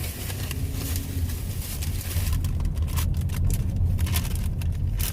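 Steady low rumble of a car interior, with a paper receipt being handled, rustling and crackling, in the second half.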